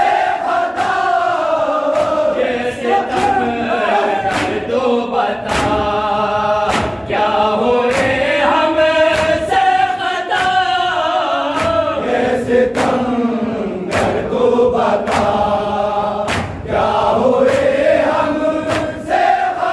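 A chorus of men chanting a noha, a Shia lament, in long rising and falling phrases, with sharp hand slaps of matam chest-beating about once a second.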